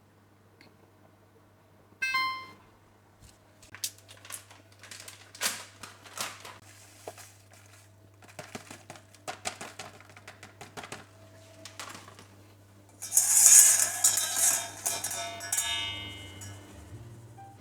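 Kitchen utensils and dishes clinking and knocking during baking: a ringing clink about two seconds in, then a run of sharp taps and knocks, and a louder noisy scrape-like stretch near the end, over a steady low hum.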